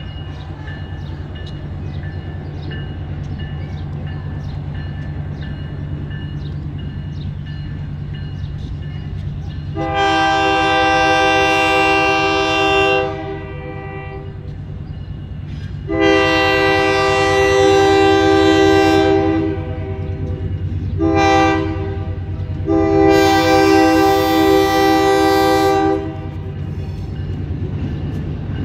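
Diesel switcher locomotive JVRR #2106 sounding its horn in the grade-crossing pattern, long, long, short, long, over the steady drone of its engine as it pulls a short train of freight cars.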